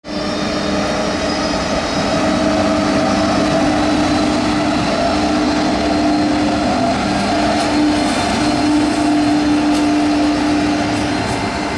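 A RegioJet class 162 electric locomotive pulling out slowly at departure and passing close by. It gives a steady electric hum with a few high whining tones over the rumble of the wheels on the track.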